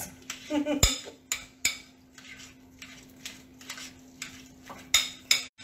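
A utensil knocking and scraping against a glass mixing bowl while crab meat, scallops and cream cheese are stirred together: irregular knocks, roughly two a second.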